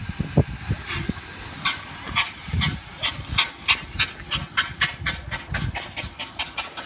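Steam-powered motorcycle pulling away, its steam exhaust chuffing in sharp puffs that come quicker and quicker as it gathers speed. A thin high whistle sounds on some of the puffs.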